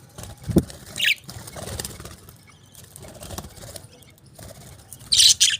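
Pet parakeets chirping, with wings fluttering: a short, falling chirp about a second in and two loud, shrill chirps near the end, with soft low flutters between.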